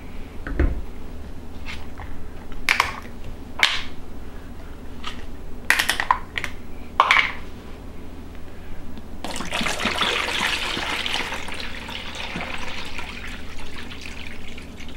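A few sharp crackles and clicks of plastic bottles being handled. About nine seconds in, liquid starts pouring steadily from two plastic bottles into a bowl.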